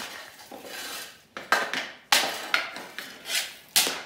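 Hockey stick blade striking and scraping pucks on a concrete floor: a string of sharp clacks with scrapes between them, from about a second in.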